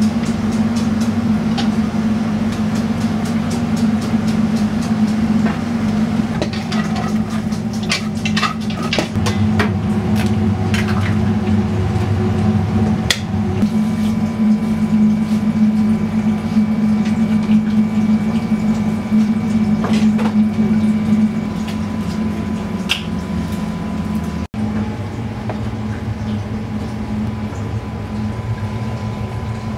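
Commercial kitchen ambience: a steady low machine hum, with a run of light clinks and clatter from utensils and stainless-steel bowls in the first half.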